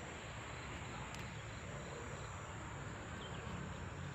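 Faint steady background of insects chirring, with a couple of faint clicks.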